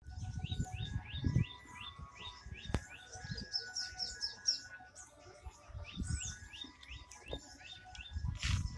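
Small birds chirping in quick runs of short, falling chirps, over low thumps and rumble, with one sharp click a little under three seconds in and a short rustling hiss near the end.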